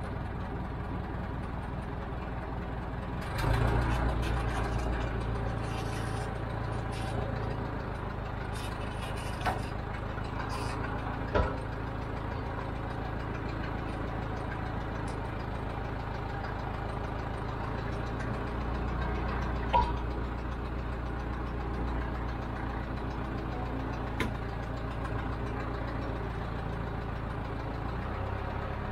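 Broderson truck crane's engine running steadily under hydraulic load as it hoists a concrete wall panel upright, revving up sharply about three seconds in and working harder again for a few seconds past the middle. A few short sharp clicks and knocks stand out above the engine.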